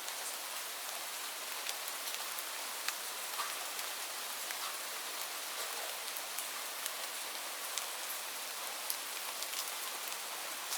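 Steady rain, a dense even hiss with frequent separate drops ticking through it.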